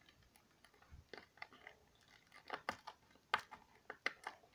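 Fingers picking and prying at the end flap of a cardboard candy box: faint, irregular clicks and scratches, a few sharper ones in the second half.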